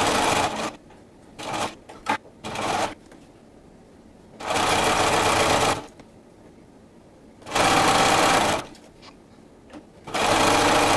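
Bernina sewing machine stitching a zigzag seam in stop-and-start runs. It runs for under a second, gives three short bursts, then makes three longer runs of a second or more, pausing in between while the knit neckband is stretched to fit.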